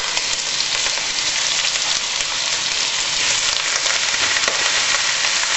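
Chunks of beef searing in hot melted butter in a pot, a steady sizzle.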